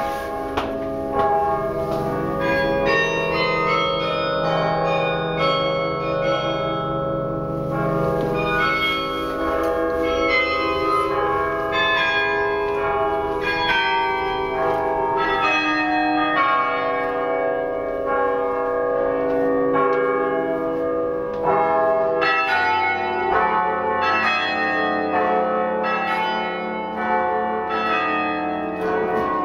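A piece played on a 72-bell bronze carillon: a quick succession of struck bells ringing on over one another. A deep bass bell comes in a little over two-thirds of the way through.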